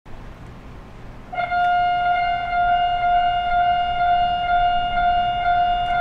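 Japanese railway level-crossing warning bell cutting in about a second and a half in and ringing steadily at one high pitch. It is the crossing alarm that signals an approaching train.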